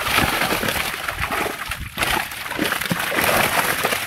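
Continuous irregular splashing and sloshing of fish thrashing in a seine net drawn tight in shallow pond water, with water churned as men wade and handle the catch.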